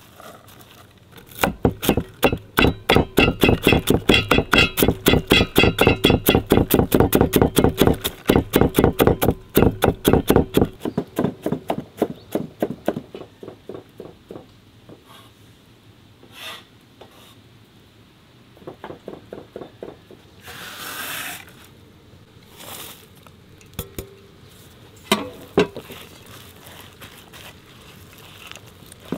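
Fast, steady knocking of kitchen work, about five strokes a second for roughly ten seconds, then fading into slower scattered knocks. Later come a few single clicks and a second-long rush of noise.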